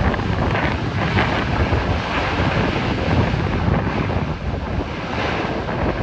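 Lockheed C-130 Hercules' four turboprop engines running steadily as the aircraft rolls out along the runway after landing, with wind buffeting the microphone.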